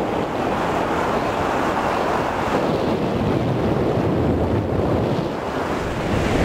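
Steady rush of airflow buffeting the built-in microphone of a camcorder taped to a hang glider's control bar in flight.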